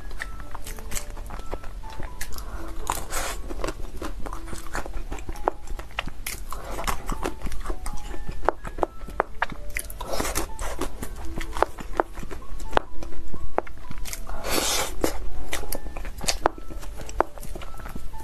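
Close-miked eating: biting and chewing chocolate-coated mousse cake, with crisp crunches of the chocolate shell and many small clicks and mouth sounds. The loudest crunches come about three, seven, ten and fifteen seconds in.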